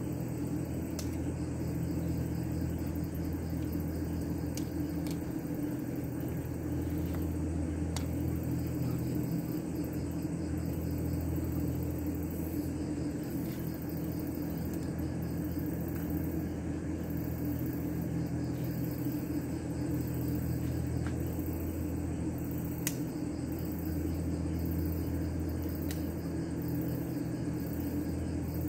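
Steady low mechanical hum of a running motor, with a faint high pulsing about once a second.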